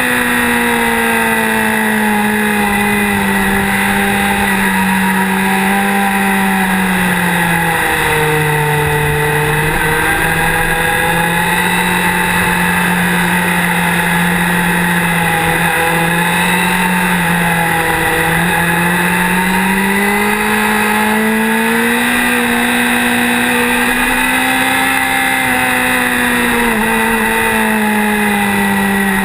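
Motorcycle engine running steadily under way through the bends, its pitch easing down a few times and climbing again with the throttle, over road noise.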